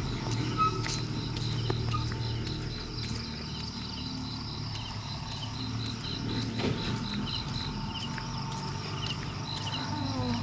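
Insects chirping in an even rhythm, about three short high pulses a second, over the low hum of a lorry engine, which is plainest in the first few seconds as the lorry pulls away.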